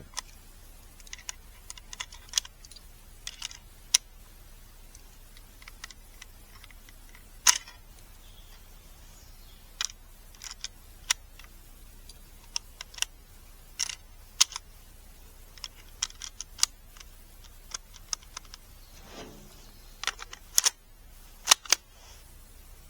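Irregular sharp clicks and light taps, about two dozen scattered with no steady rhythm, with a brief soft rustle near the end.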